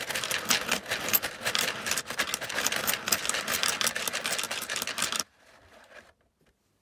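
Hand-cranked 3D-printed plastic coin sorter running: euro coins rattling and clicking through the sorting wheel and dropping into the slide's slots. The dense, rapid clatter stops suddenly about five seconds in.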